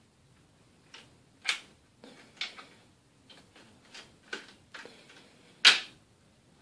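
Irregular sharp clicks and knocks from an aluminium tripod being handled and adjusted, about nine in all, one louder about a second and a half in and the loudest near the end.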